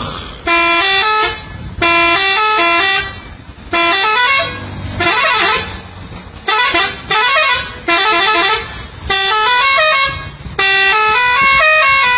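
Truck's multi-tone melody horn (a 'telolet' horn) playing a tune in short phrases about a second long, one after another, each a run of notes stepping up and down in pitch.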